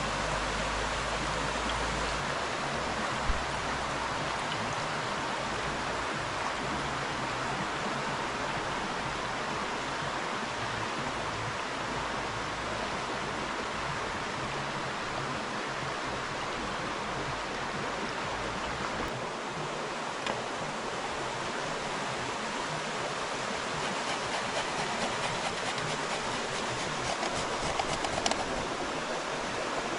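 River water flowing steadily. A few small sharp clicks come in near the end.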